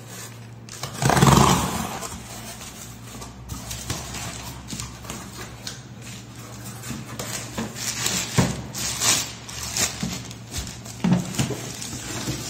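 Cardboard carton being opened with a utility knife: a loud tearing rip about a second in as the tape and cardboard are cut, then irregular rustling of plastic wrapping and knocks of cardboard flaps as the contents are handled.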